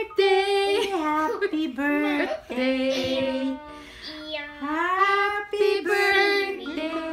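Young boys singing without clear words, holding long notes that slide up and down in pitch.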